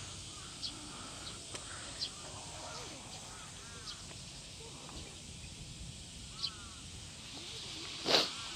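Faint open-air background with birds calling now and then, short high chirps and a few lower arched calls, and a brief knock, the loudest sound, about eight seconds in.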